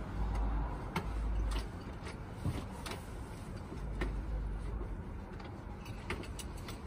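Irregular metallic clicks and rattles of a key and handle being worked in a motel room door lock that spins freely without catching, the lock apparently broken. A low rumble is strongest in the first couple of seconds.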